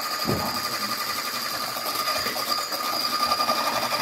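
Electric hand mixer running steadily at speed, beating a cake mixture, with a steady high whine over a dense buzz.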